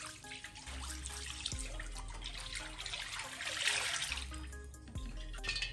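Cooking oil poured in a steady stream into an empty wok, splashing in the pan and growing louder before stopping near the end, with soft background music underneath.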